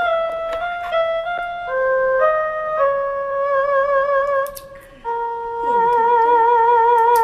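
Background music: a simple melody of single held notes, the longer ones wavering with vibrato, which dips quietly for a moment about two-thirds of the way through.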